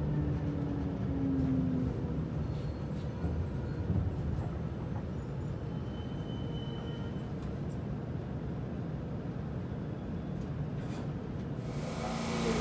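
Inside a JR Shikoku 8000 series electric train slowing into a station: the Toshiba GTO VVVF inverter and traction motor whine falls in pitch and dies out about two seconds in, leaving a steady low rumble from the car. Near the end the sound changes to a brighter hiss with a steady low hum.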